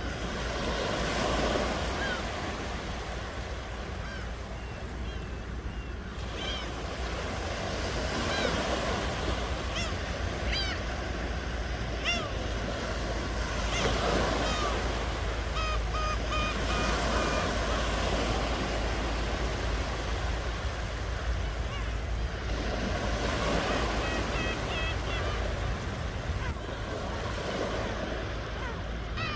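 Ocean waves washing onto the shore, swelling and easing every several seconds over a steady low surf rumble, with short high bird calls scattered over them.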